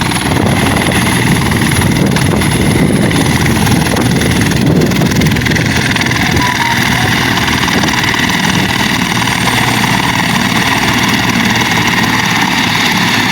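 Helicopter running close by: a loud, steady rotor and engine noise with a constant high whine over it.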